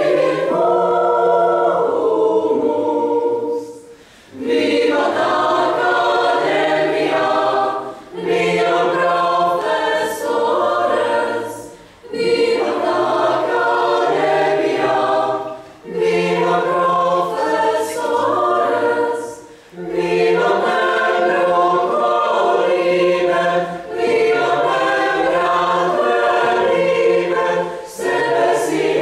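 Small choir of mostly female voices singing a slow song in phrases of about four seconds, with a short break for breath between phrases.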